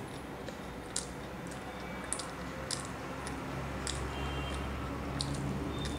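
Close-miked chewing and mouth sounds of a person eating soft fried luchi with pumpkin curry by hand, with sharp wet smacks and clicks every half second to second or so. A low steady hum runs underneath.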